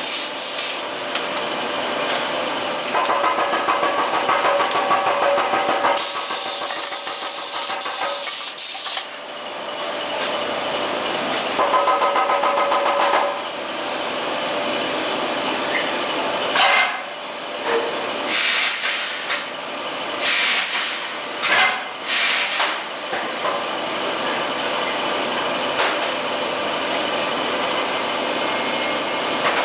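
Green-sand moulding machine at work over steady foundry machinery noise. There are two spells of a buzzing pneumatic machine run, the first of about three seconds and the second shorter. Past the middle come five or six short, loud hissing blasts of compressed air.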